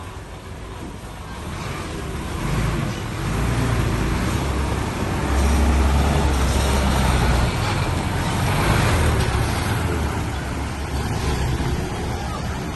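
Heavy diesel engine of a working construction vehicle running under load, growing louder from about two seconds in and loudest around the middle.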